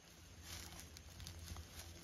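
Faint rustling and a few scattered soft crackles of dry bamboo leaf litter, over a low steady hum.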